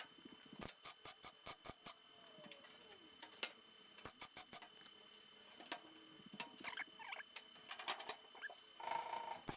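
Tack welding a replacement sheet-steel body panel: a run of short, faint crackling bursts, about five a second at first, then more scattered, with a brief buzz near the end.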